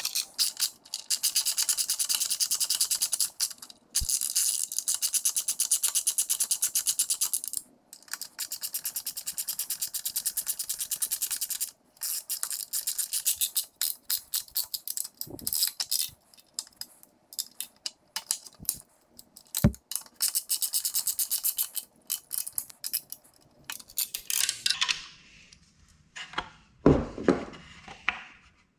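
Ratchet wrench with a 5mm hex bit clicking rapidly in runs of a few seconds as the front fender bolts are run in by hand. It breaks off into a few separate handling knocks near the end.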